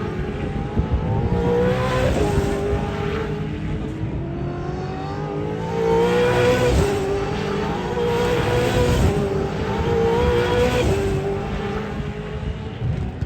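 V8 Supercar racing engines accelerating hard. The pitch climbs and drops back at each upshift, about five times over, loudest about six seconds in.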